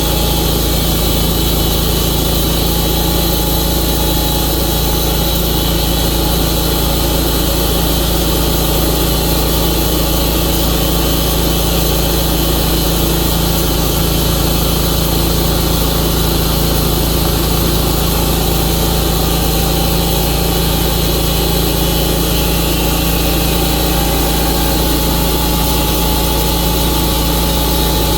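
Tru-Cut sawmill's engine running steadily at an even pitch, with no change in speed.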